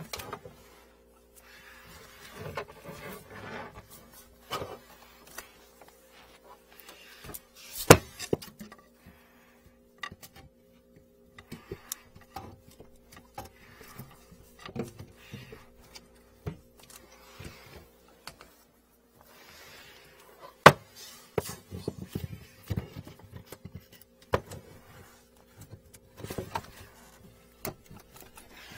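Handling noise of work on a kitchen sink drain: irregular clicks, knocks and rustling as gloved hands move the drain hose and pipe fittings under the sink, over a faint steady hum. The sharpest knocks come about eight seconds in and again near twenty seconds.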